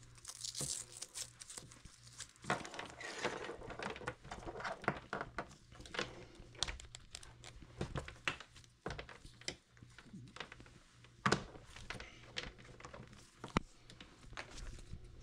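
Oscilloscope probe cables and test leads being handled and plugged in: irregular rustling of cable and plastic with scattered small clicks, a few sharper clicks in the second half.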